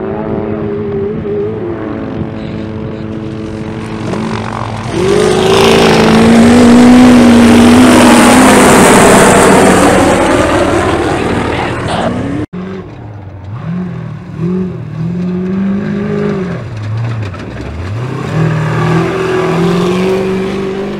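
Ultra 4 race car engine at full throttle as the car races close past, loud for several seconds. After a cut, the engine revs up and down again and again as the car climbs over rocks.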